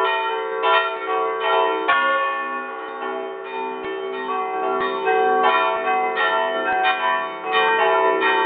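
Several church bells rung together in a festive peal, heard close up from inside the belfry beneath one of the bells. The strokes overlap without a break, with a deeper stroke repeating about every half second to second from about two seconds in.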